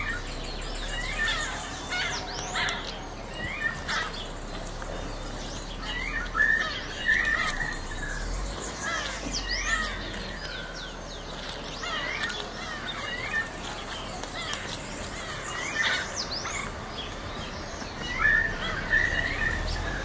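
Mixed chorus of wild birds: many short chirps, whistles and calls from several species overlapping continuously, with a low steady hum underneath.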